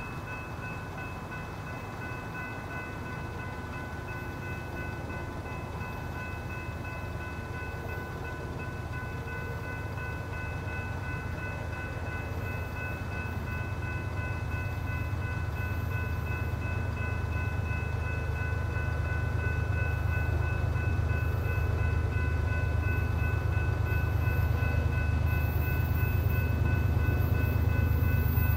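Freight train led by GE diesel locomotives approaching, its low engine rumble growing steadily louder. Steady high-pitched tones sound throughout.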